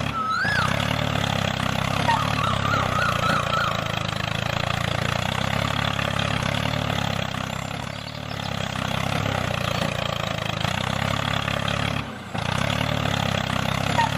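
An engine idling steadily, with a few short bird chirps over it in the first few seconds. The engine sound cuts out briefly about twelve seconds in and then carries on.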